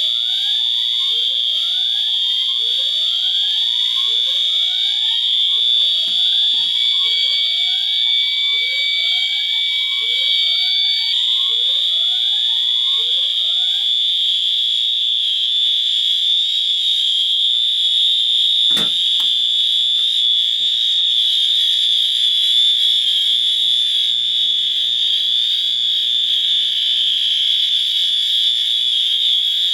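Fire alarm system sounding: a steady high-pitched horn tone throughout, with rising whoop sweeps repeating about every three-quarters of a second over it. The whoops stop about halfway, and a single sharp click follows a few seconds later while the steady tone keeps going.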